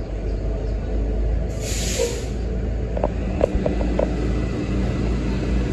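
City transit buses idling with a steady low rumble. About one and a half seconds in comes a short hiss of released air from a bus's air system, then a few light clicks.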